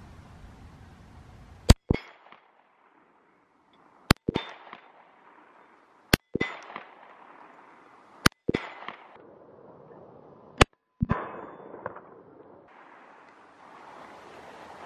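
Five pairs of sharp cracks, about two seconds apart: 10mm pistol shots from a Glock 40 and the pure incendiary bullets striking a steel target. Each pair is followed by a short trailing hiss.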